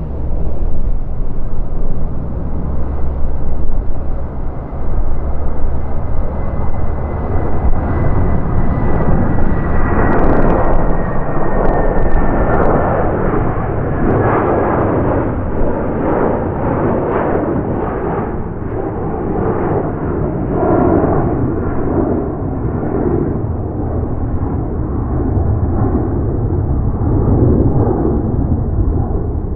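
Boeing 757-300 jet engines running loud as the airliner passes, a deep rumble under the roar. A thin high whine drifts slowly down in pitch through the first half, then the roar turns rougher and fluttering and eases a little.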